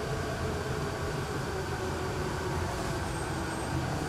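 Hyundai Rotem R-Train electric multiple unit running along the track, heard from inside the carriage: a steady rumble of wheels and running gear, with a faint high whine briefly about three seconds in.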